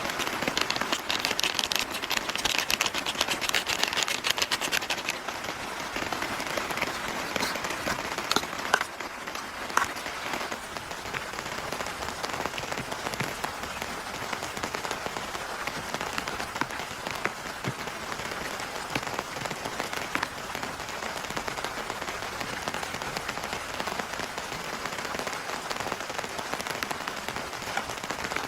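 Heavy rain falling, with a dense patter of sharp drop hits on a nearby surface, thickest over the first few seconds and then settling to a steady downpour, with a few louder single drops.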